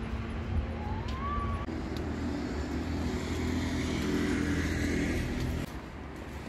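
Road traffic: a car's engine and tyres passing with a low rumble, louder in the middle and cutting off abruptly about a second before the end. A brief rising whistle sounds about a second in.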